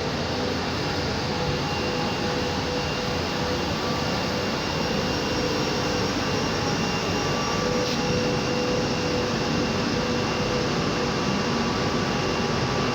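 A 2-ton-per-hour dual-fuel steam boiler running: a steady, even machine noise with a few faint constant tones over it.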